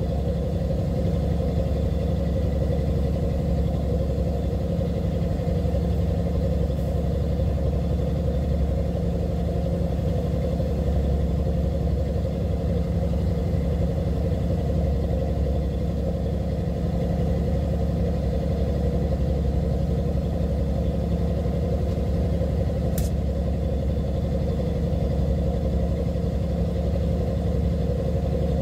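Diesel engine running steadily aboard a fishing boat, a constant low drone. A single sharp click comes about 23 seconds in.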